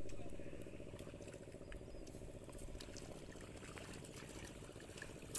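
Faint trickling and splashing of water in a flooded rice paddy, over a steady low rumble that is loudest at the start and fades over the first second, with a few faint clicks.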